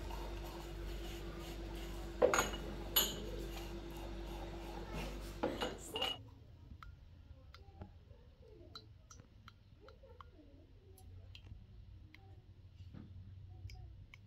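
Dishes and metal utensils clinking and clattering at a kitchen sink over a steady background hum, with a few louder clatters. About six seconds in the sound cuts to a much quieter stretch with only faint, scattered ticks.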